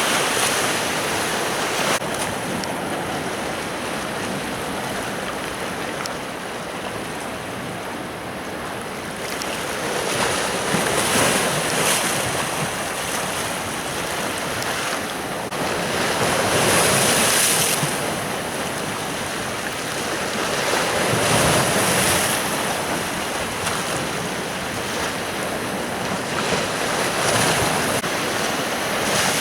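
Sea waves breaking on a beach, each surge of surf swelling and fading about every five or six seconds.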